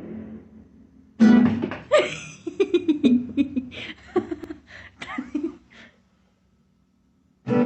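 A short burst of music on a plucked guitar, starting suddenly about a second in and breaking off about six seconds in.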